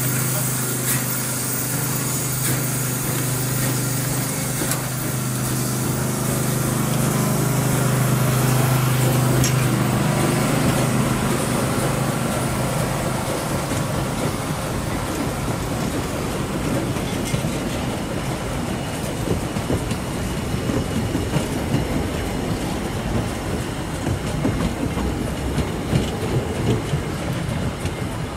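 Narrow-gauge steam train passing. A steady low hum carries through about the first ten seconds, then fades as the coaches roll by with wheels clicking irregularly over the rail joints, the clicks growing more frequent toward the end.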